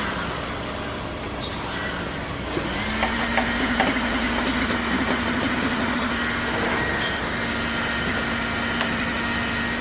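An engine running steadily, slowing briefly near the start and speeding back up about two and a half seconds in, with a few scattered knocks.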